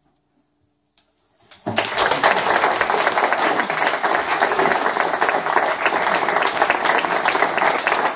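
Audience applauding, breaking out suddenly about a second and a half in after a moment of near silence, then steady dense clapping.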